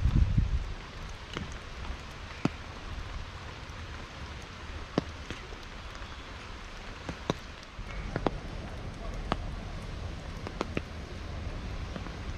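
Steady heavy rain, with scattered sharper drop hits standing out about once a second or so. A low rumble comes in at the very start and again from about two-thirds of the way through.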